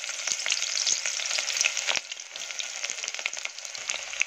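Chopped onion frying in hot oil: a steady sizzle thick with fine crackling pops.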